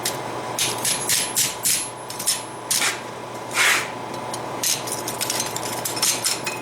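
Steel blacksmithing tooling being tapped, knocked and fitted together by hand: a quick, irregular run of sharp metal clinks and clanks, with one longer, heavier scrape-like clank about halfway through.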